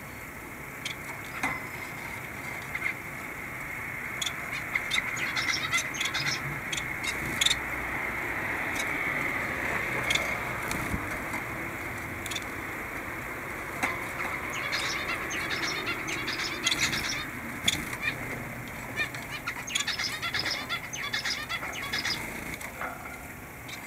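Small cage birds at their woven nest baskets giving clusters of short, high chirps and rustles, over a steady background noise.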